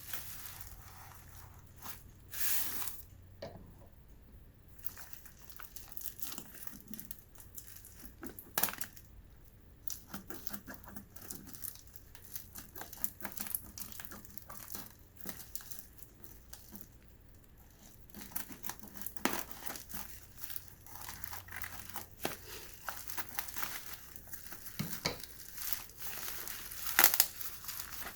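Packaging being handled during an unboxing: crinkling and rustling, with irregular clicks and taps. There are louder bursts about two and a half seconds in, around eight and a half seconds, and near the end.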